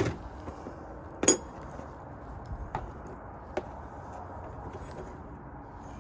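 Metal clinks and taps of hand tools working loose the hardware that holds a car battery in place. There is one sharp clank about a second in, then a few lighter ticks.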